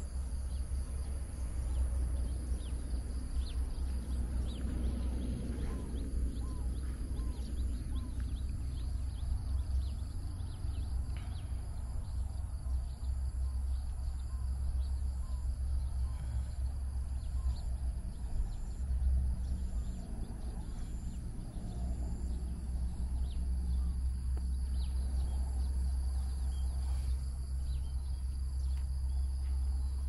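Rural outdoor ambience: a steady high insect drone with scattered short bird chirps, over a continuous uneven low rumble.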